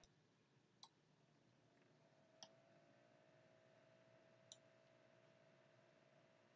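Near silence with three faint computer mouse clicks a couple of seconds apart, and a faint steady hum coming in about two seconds in.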